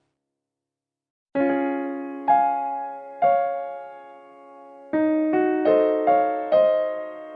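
Background piano music: after about a second of silence, notes and chords are struck one after another, each fading away before the next.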